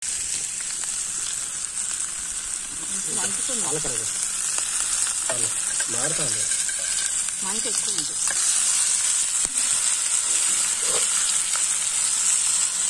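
Masala-coated chicken quarters frying in oil on a flat metal pan: a steady sizzle.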